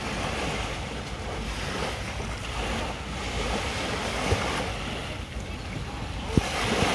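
Small waves washing on a sandy shore, with wind rumbling on the microphone. A couple of brief knocks, one about four seconds in and one near the end.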